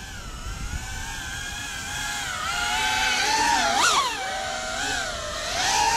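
FPV quadcopter's brushless motors and propellers whining, the pitch wavering up and down with the throttle and getting louder, with a quick swoop up and down about four seconds in.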